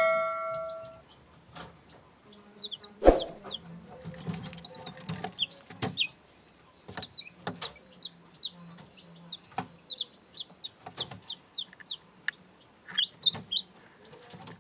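Newly hatched chicks peeping: many short, high chirps scattered throughout, with scattered clicks and a sharp knock about three seconds in. A ringing chime fades out in the first second.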